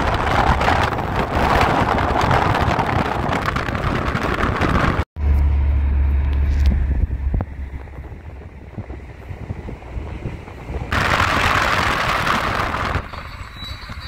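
Rushing wind and road noise of a car driving along a highway. It breaks off abruptly about five seconds in, then a deep low rumble runs for about two seconds, followed by quieter road noise and another loud rush of wind near the end.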